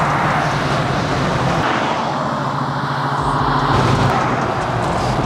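1968 Chevrolet C10 pickup driving along the road: a steady engine note with tyre and road noise.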